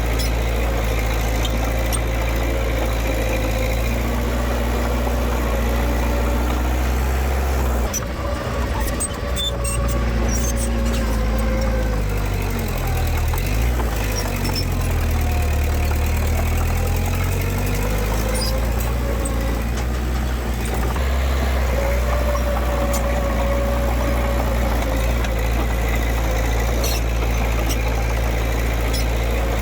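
Diesel engine of heavy earthmoving machinery running steadily. Its speed drops and then climbs again around the middle, as the machine works under changing load.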